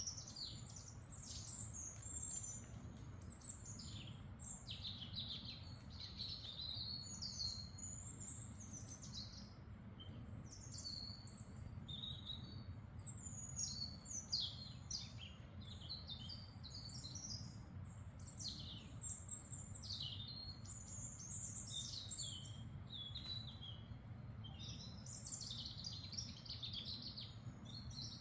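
Forest birdsong: several birds chirping and singing constantly, with overlapping short calls, over a steady low rumble.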